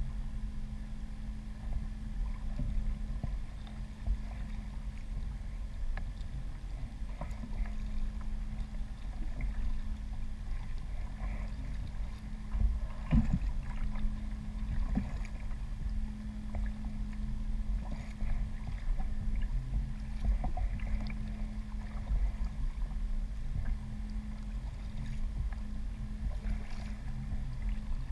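Water sloshing against a fishing kayak's hull, over a low steady hum and rumble, with scattered small knocks and a louder knock about 13 seconds in.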